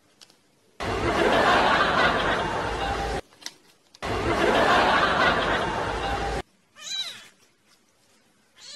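Canned audience laughter, two loud bursts of about two and a half seconds each that cut in and out abruptly. Near the end, a kitten meows twice, briefly.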